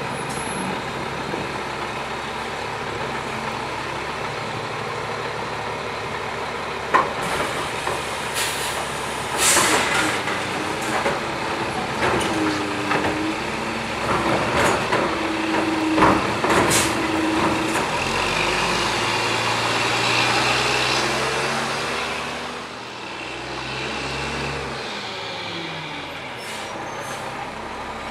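Diesel engine of a Mack LE front-loader garbage truck running as it maneuvers, with sharp air-brake hisses and metal clanks while its hydraulic forks lower the Curotto-Can cart-tipper. A steady whine from the hydraulics under load comes in the middle, and the engine revs up for a few seconds after it.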